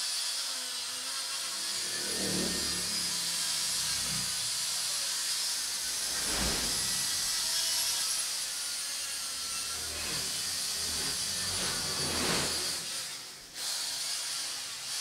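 Handheld electric power tool with a scrubbing attachment running against a dirty motorcycle engine casing to clean it. Its pitch sags and recovers several times as it is pressed on. It cuts out briefly near the end.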